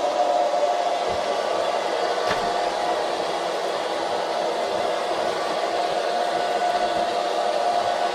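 Panda X500 Pet Series robot vacuum cleaning, its suction motor and fan giving a steady, even whir.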